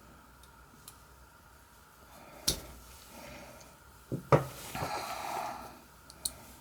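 A few sharp metal clicks from tools working a picked challenge lock as it is being taken apart: one about two and a half seconds in, then two close together about four seconds in, followed by a short breath out.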